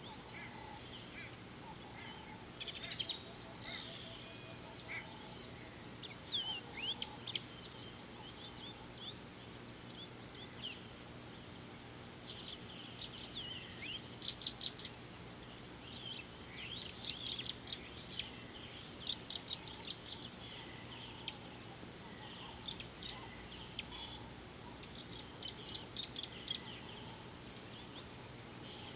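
Wild birds chirping and trilling in quick high-pitched runs, busiest in the second half, with a few lower calls in the first few seconds, over a steady low hum.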